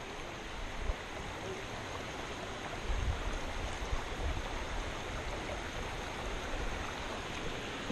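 Creek water running steadily, with a low rumble of wind or handling on the microphone around the middle.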